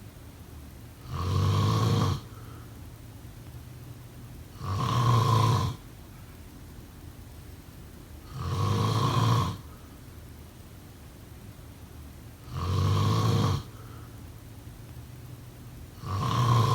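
Snoring: five loud snores at a steady rhythm, about four seconds apart, each lasting about a second, with the last one cut off at the end.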